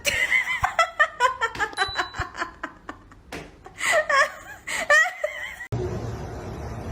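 Human laughter in quick, high-pitched bursts, with more laughing a few seconds in. Near the end it cuts suddenly to a steady, noisy low background.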